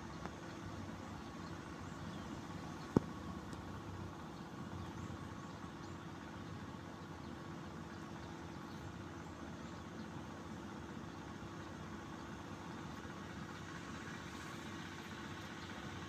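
Steady low mechanical hum, engine-like and unchanging, with a single sharp click about three seconds in.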